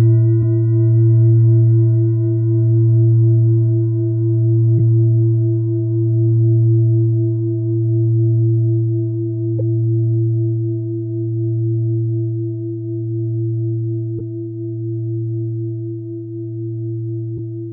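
A low-pitched singing bowl ringing after a single strike, with a slow pulsing wobble as it gradually fades.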